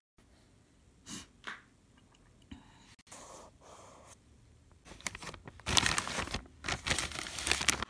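Plastic bag crinkling and rustling close to the microphone, loudest and most continuous in the last two seconds, after a few lighter rustles of handling.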